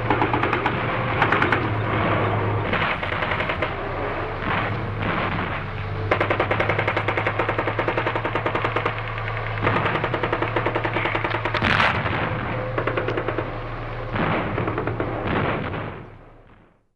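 Battle ambience of dense, rapid rifle and automatic gunfire, with a steady low hum underneath and a louder burst about twelve seconds in. The sound fades out near the end.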